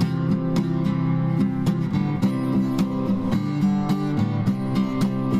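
Background music on acoustic guitar, notes plucked and strummed in a steady rhythm.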